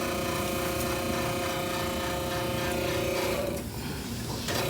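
A machine running with a steady hum and whine, cutting out for about a second near the end and then starting again.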